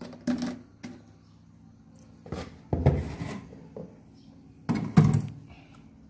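Plastic knocks and clatters as the mesh strainer basket of an electric knapsack sprayer is handled and fitted into the plastic tank's filler opening: several separate knocks, the loudest about five seconds in, over a faint steady low hum.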